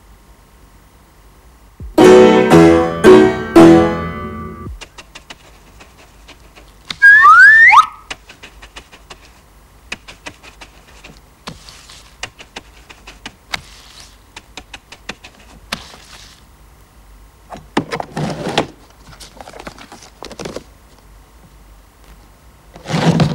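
Cartoon soundtrack of sparse music and sound effects: a short phrase of several musical notes about two seconds in, then a quick rising whistle-like glide, then faint scattered clicks with a brief noisy swish around eighteen seconds and another just before the end.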